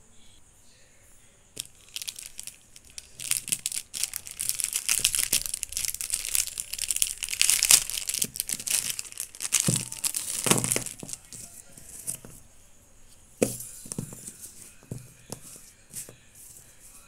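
Clear plastic wrapping around a bundle of paper blending stumps crinkling and crackling as hands handle and open it, densest through the middle of the stretch. Toward the end it thins to sparse rustles and a few soft knocks.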